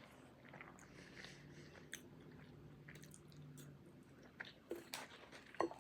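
Faint close-up chewing of a mouthful of butter chicken and rice, with soft wet mouth clicks. There are two brief hums from the eater near the end.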